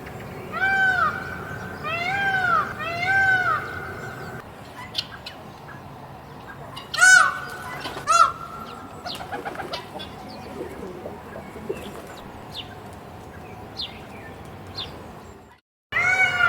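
Peacock calling: three loud rising-and-falling calls in quick succession, then one or two more a few seconds later, with small birds chirping in between.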